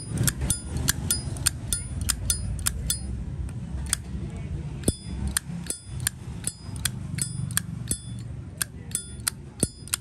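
Zippo lighter's hinged metal lid flicked open and snapped shut over and over, each stroke a sharp metallic click with a brief high ring, two to three a second.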